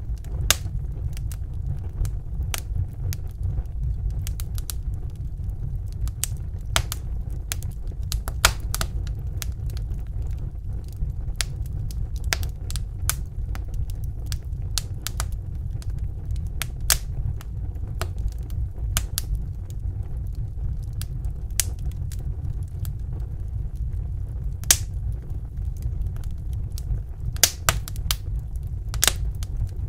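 Wood fire in a fireplace crackling: irregular sharp pops and snaps, a few louder than the rest, over a steady low rumble of the burning fire.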